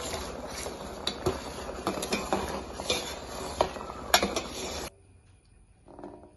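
Jaggery melting in water in a steel pot, boiling and bubbling, with a utensil clinking sharply against the metal pot many times as it is stirred. The sound cuts off suddenly about five seconds in.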